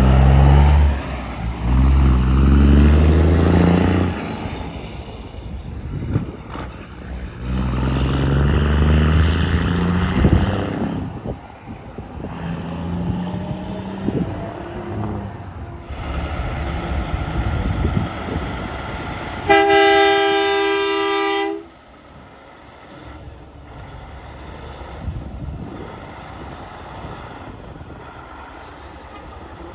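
Semi-truck tractor's diesel engine pulling away under load, its pitch climbing and dropping back with each upshift. About twenty seconds in, a truck horn blasts for about two seconds with several notes sounding at once. After it a quieter engine rumbles at a distance.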